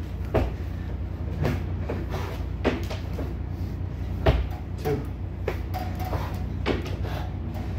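Hands and feet knocking on the wooden floor of an empty semi-trailer during a crawling exercise: irregular short thumps about once a second, over a steady low hum.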